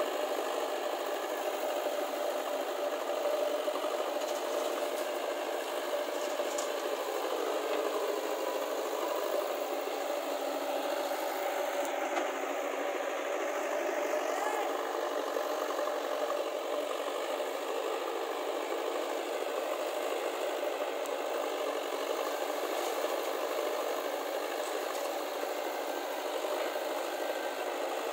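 Diesel engines of a JCB 3DX backhoe loader and a tractor running steadily as the loader works, with a slight wavering in pitch.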